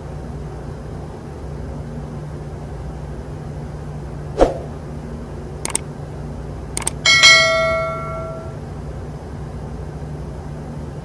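Metal-on-metal clinks of an inside micrometer against the steel big-end bore of a Yanmar connecting rod: a sharp tap about four seconds in, a few light clicks, then a clang a little after seven seconds that rings on for over a second. A steady low machinery hum runs underneath.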